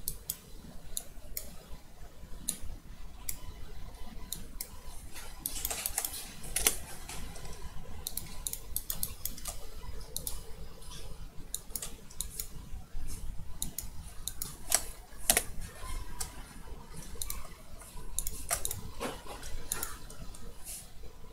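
Computer mouse and keyboard clicking at an irregular pace, single clicks and short runs of them, over a low steady hum.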